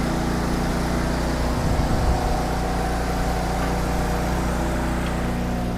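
Steady low machine hum, like an engine running, with a brief low thump or knock about two seconds in.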